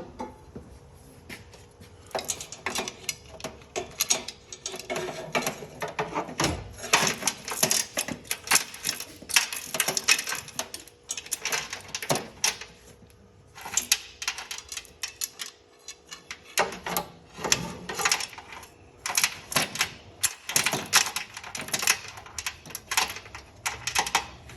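Ratchet wrench clicking rapidly as it is worked back and forth on a nut, in runs of quick clicks broken by short pauses.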